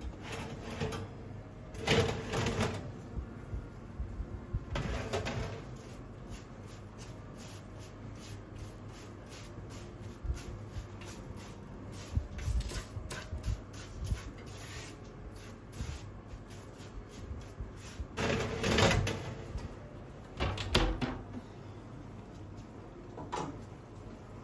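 Household handling sounds, likely in a kitchen: a string of small clicks and knocks, with a few louder clattering bursts about 2 and 5 seconds in and twice more near the end.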